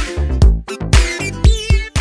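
Upbeat electronic dance music with a heavy kick drum, about two beats a second.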